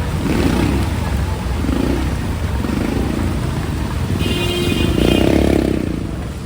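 Street traffic: motorcycle and vehicle engines running close by, with a steady low rumble and engine swells, and a brief high-pitched tone a little past four seconds in.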